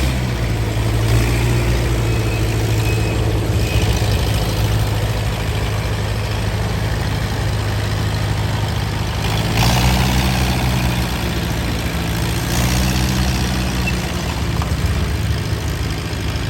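Rice combine harvester's diesel engine running steadily close by, with a low even hum that swells louder about ten seconds in and again near thirteen seconds.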